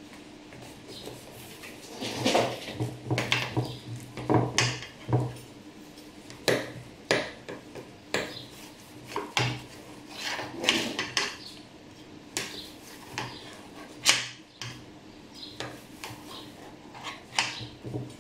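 Knife slicing through rows of phyllo-pastry baklava rolls in a metal baking tray: a string of irregular crackling cuts through the layered pastry, with the blade knocking and scraping on the tray.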